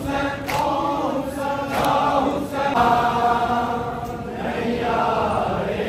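A crowd of men chanting a Muharram lament (noha) together, with a few sharp slaps of chest-beating (matam) among the voices.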